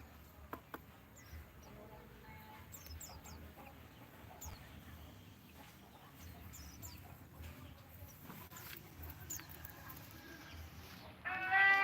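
Faint, scattered chirps of small birds. About eleven seconds in, a loud, drawn-out call at a steady pitch from a larger animal starts and runs on past the end.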